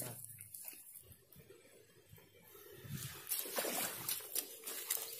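Faint rustling of reed grass and sloshing of shallow water as someone moves through the reeds at the water's edge, with short scratchy noises from about three seconds in.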